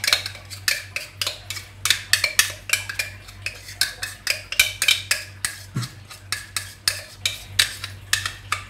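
A metal spoon clinking against a bowl about three times a second while sambal belacan is mixed, over a steady low hum.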